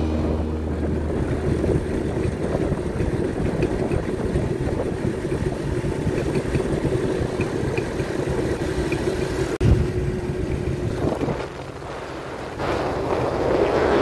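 Small motorcycles riding along a road: engine running steadily under wind and road noise. A single knock about ten seconds in, then the sound drops for about a second before picking up again.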